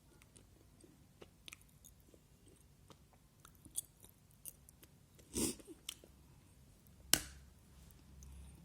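Close-up mouth sounds of raw Multani mitti (fuller's earth clay) being chewed: faint soft clicks and crackles, with a louder crunch about five and a half seconds in and a sharp click about seven seconds in.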